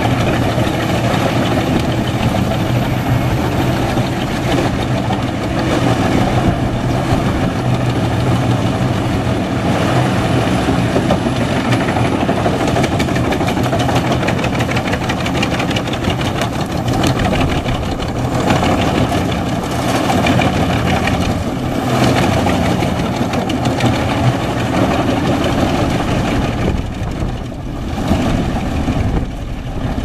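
Engine of a wood chipper running steadily, with a short dip in level near the end.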